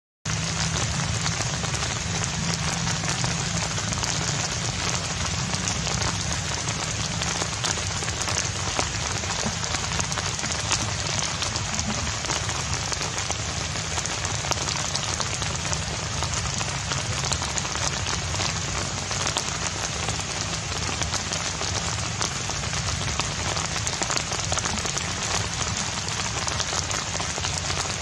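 Steady rain falling: a dense, even patter of drops that starts suddenly and holds unchanged.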